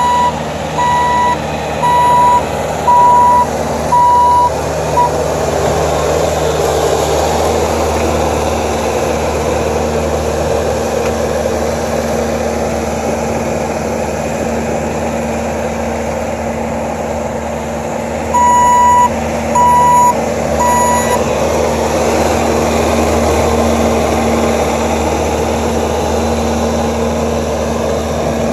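Bobcat compact track loader's diesel engine running steadily. Its backup alarm beeps about once a second, five times at the start and three more times about two-thirds of the way through.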